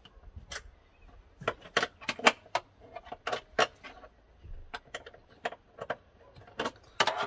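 Irregular small metallic clicks and clinks as a crimped cable lug and hand tools are worked onto a leisure battery terminal stud.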